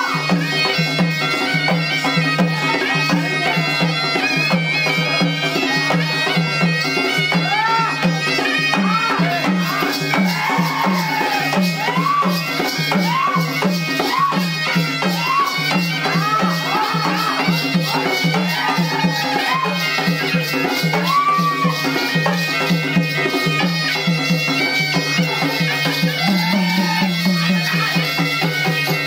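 Traditional Indian folk dance music: a reedy wind instrument plays a melody that swoops up and down over a steady drone, with drums beating about twice a second.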